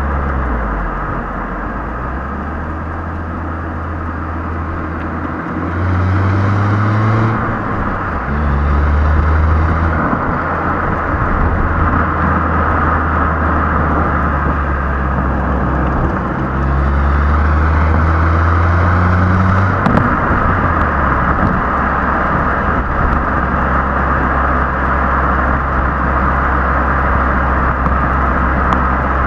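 Stock exhaust of a Hyundai i20 Elite 1.2 four-cylinder petrol engine while driving, heard from just under the rear bumper. The engine note climbs in pitch three times, about six, nine and eighteen seconds in, each time dropping back sharply, then holds steady at cruise. Tyre and road noise runs underneath.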